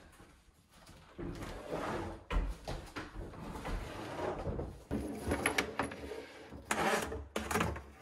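Irregular scraping, rubbing and a few knocks as a dishwasher is slid into its under-counter opening and its hoses and power cord are pulled through the cabinet.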